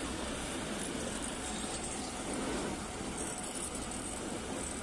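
Steady rushing of water pouring into a steam locomotive's water tank while it takes on water.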